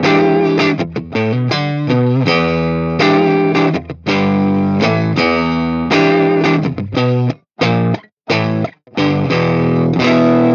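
Electric guitar played through the Flatsons KE1 multi-effects pedal's Tweed amp model: ringing chords and riffs, with a few short, chopped chords and brief gaps about seven to nine seconds in.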